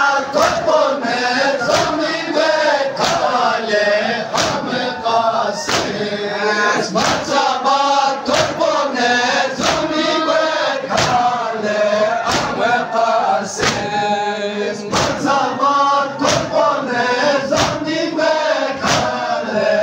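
A crowd of men chanting a Balti noha (Muharram mourning lament) in unison, to a steady beat of matam chest-slaps roughly every second and a quarter.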